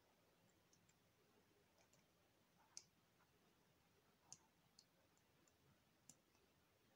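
Near silence with about four faint, short clicks of small Lego plastic pieces being handled and pressed together while a Lego reindeer figure is being fitted into place.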